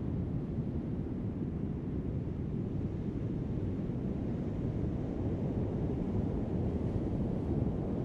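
Heavy surf on a sand beach: a steady low roar of waves breaking, with no single crash standing out.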